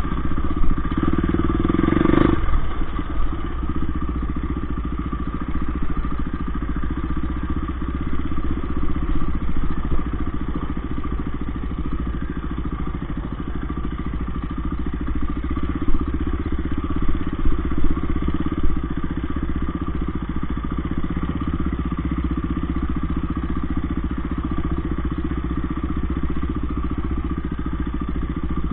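Off-road dirt bike engine running at low revs over a rough trail, heard from the bike itself, with knocks and rattles as it goes over bumps. It swells briefly about a second in, ending in a sharp knock, and there are a few louder knocks past the middle.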